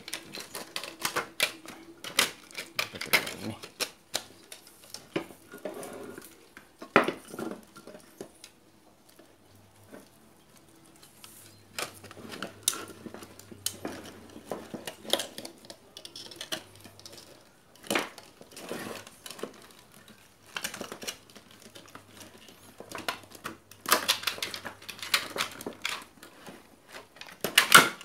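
Irregular metallic clicks, knocks and clatter of a desktop ATX computer power supply's casing, screws and tools being handled as the unit is put back together, in bunches with a quieter pause about a third of the way in.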